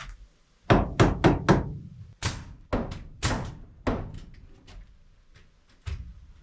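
Hammer blows on wood, driving nails into a scrap-wood cabinet frame. There is a quick run of four loud strikes about a second in, then slower blows that grow fainter.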